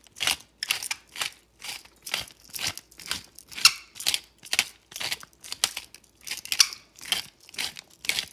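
Hand-held pepper grinder being twisted, cracking black peppercorns: a short gritty rasp with each turn, about twice a second, repeated steadily.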